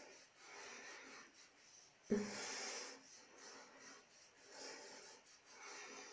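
Wet cotton pad rubbing across the skin of the forehead and face in soft, repeated strokes, with a short, louder sound that starts suddenly about two seconds in.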